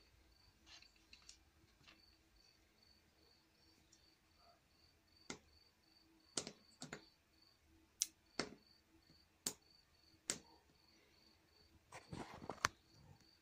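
Sharp clicks of small push-buttons on a digital bench power module being pressed, about seven spread over several seconds and then a quick cluster near the end, over a faint high-pitched beeping that pulses a little over twice a second.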